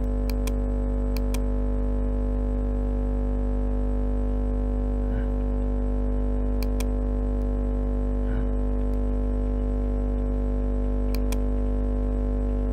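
Steady electrical hum with a buzz of many overtones, unchanging and as loud as the voice. A few pairs of sharp clicks from a computer mouse come over it.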